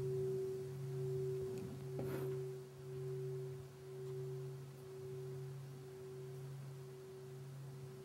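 Large bowl-shaped meditation bell ringing on after being struck: a low steady hum with a higher overtone, slowly fading and pulsing in waves about once a second. A brief soft rustle comes about two seconds in.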